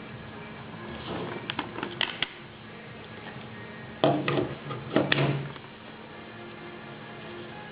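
Sheet of paper being handled and folded: rustling and sharp crackles in two bursts, the louder one about four to five and a half seconds in.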